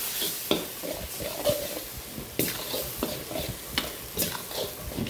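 A metal spatula scraping and tossing minced pork and basil around a carbon-steel wok, with irregular clanks against the pan over a steady sizzle, the gas burner just turned off.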